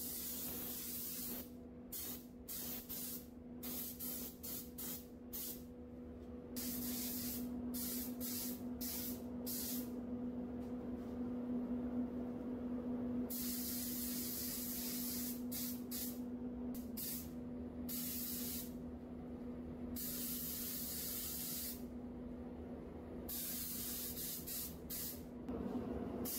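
Gravity-feed spray gun hissing in bursts as the trigger is pulled and let go, short bursts at first and longer passes later, laying a red tint coat. A steady low hum runs underneath.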